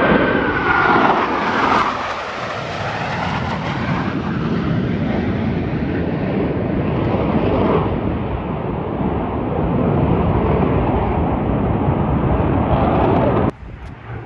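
Blue Angels F/A-18 Super Hornet jets roaring past low in formation, with a falling whine in the first second as they pass. The roar then holds steady and cuts off suddenly near the end.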